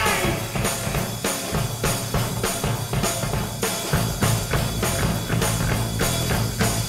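Rock music with a steady drum beat and no singing; the bass drops away and comes back in about four seconds in.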